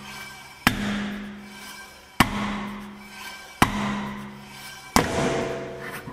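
Four heavy hammer blows about a second and a half apart, knocking a 2016 Ford Flex's aluminum wheel loose from the hub it has seized onto. Each blow rings on with a steady tone that slowly fades.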